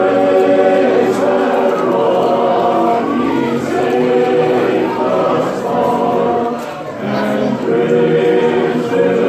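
Men's barbershop chorus singing a cappella in close four-part harmony, long held chords with short breaks between phrases about a third and three-quarters of the way in.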